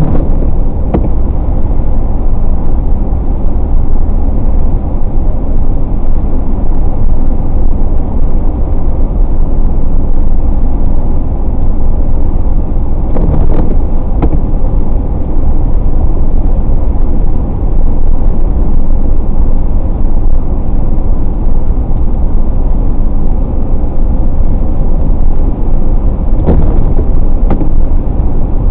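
Steady road noise of a car driving on a wet highway, with a few brief knocks.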